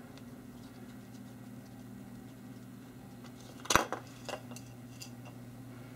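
A low steady hum, then a sharp click nearly four seconds in and a few lighter clicks after it: small screws being unscrewed and handled.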